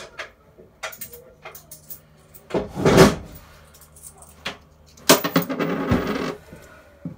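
Handling noises: a heavy knock about three seconds in, then about a second of rattling clatter near the end.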